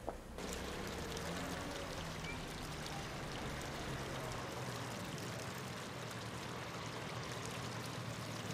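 A sharp click right at the start, then the steady splashing and pouring of a public fountain's water sets in abruptly and runs on evenly.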